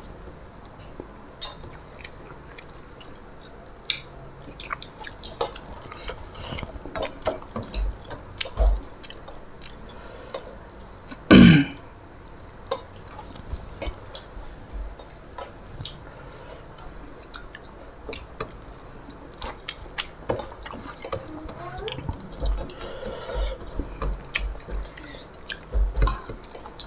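Close-up eating sounds: wet squishing of rice mixed by hand on steel plates, with chewing and scattered small clicks of fingers against the metal. One short, louder noise about midway.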